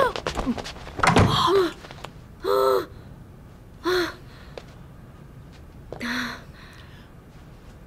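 Short wordless vocal sounds: gasps and brief exclamations, three of them a second or more apart. There is a bump and scuffle about a second in.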